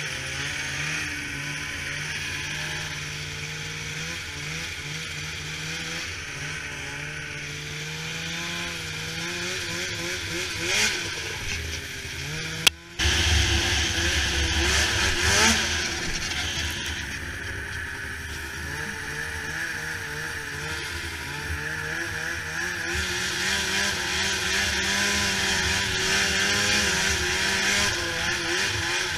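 Snowmobile engine running under changing throttle, its pitch rising and falling. The sound breaks off abruptly about 13 seconds in and resumes louder, with a heavy low rumble, from the rider's own sled.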